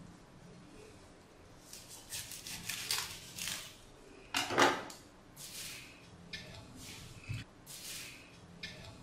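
Kitchen knife cutting through a raw cabbage on a wooden chopping board: a string of short crisp crunching cuts, some ending in a knock on the board, the loudest about four and a half seconds in.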